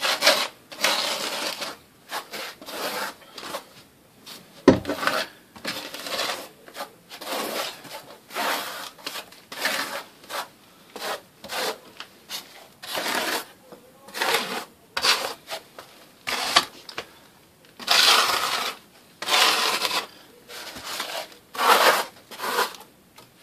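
Steel trowel scraping and smoothing thinset mortar around a shower drain: a long run of irregular rasping strokes, with one sharp knock about five seconds in.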